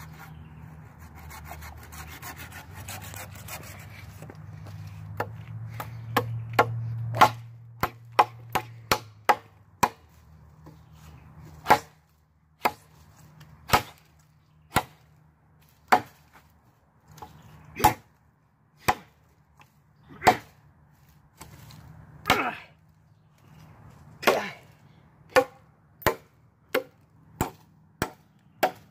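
Saw-backed machete working a wooden stick: rasping sawing strokes for the first several seconds, then about twenty sharp chopping strikes into the wood at uneven intervals.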